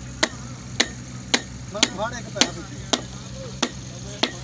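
Steady rhythmic striking: eight sharp blows about half a second apart, like a hammer hitting something solid, with faint voices in the background.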